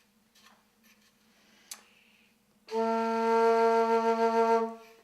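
Saxophone-voiced organ pipe sounding one steady note for about two seconds, after a few faint handling clicks.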